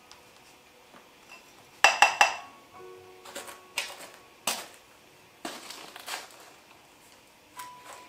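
Hard dishes and utensils being handled, clinking and knocking: a quick run of three loud ringing clinks about two seconds in, then scattered lighter knocks. Soft background music with held notes underneath.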